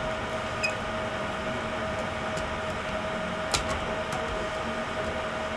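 Steady electrical hum with a faint hiss, and a few light clicks of plastic laptop parts being handled, the sharpest about three and a half seconds in.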